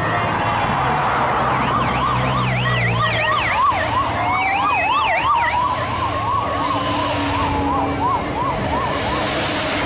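Sirens of a passing police motorcycle escort: several sirens overlap in a fast yelp of about four sweeps a second, and one slow wail rises and falls in the middle.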